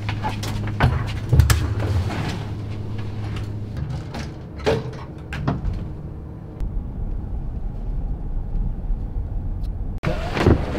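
Elevator with sliding doors: a steady low hum for the first few seconds, then a lower rumble, with scattered clicks and clunks from the doors.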